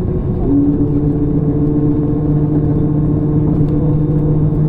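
Cabin noise of an Airbus A321 rolling out after touchdown: a steady rumble of engines and airframe, joined about half a second in by a steady engine hum that makes it a little louder.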